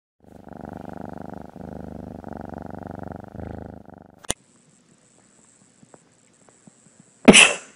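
A cat purring steadily for about four seconds in pulsing stretches, ending in a sharp click. Near the end comes a short, loud burst of sound.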